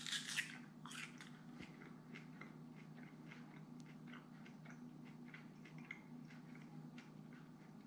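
A bite into a firm slice of mango: a few sharp crisp clicks right at the start. Then quiet chewing with faint scattered clicks over a low steady hum.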